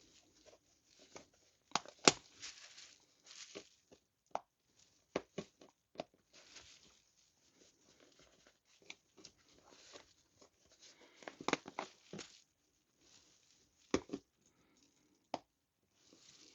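Old staples being pried up with flathead screwdrivers and pulled out of a motorcycle seat: scattered sharp metal clicks and short scraping, tearing sounds, with a denser flurry about eleven seconds in.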